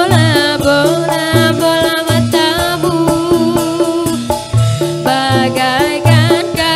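Background music: a melody over a steady, repeating bass and drum beat.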